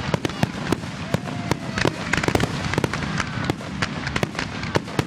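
Fireworks crackling, a dense run of many rapid sharp pops and snaps with no break.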